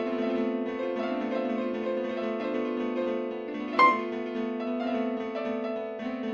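Slow keyboard music, piano-like sustained chords changing every second or so, with one brief sharp hit just under four seconds in.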